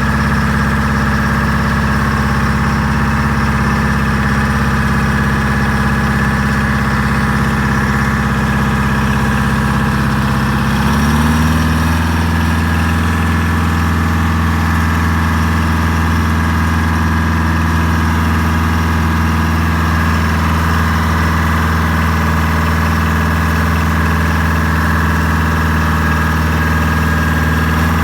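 IH 1600 truck engine idling steadily; about eleven seconds in its speed steps up a little and then holds at the new, slightly faster idle.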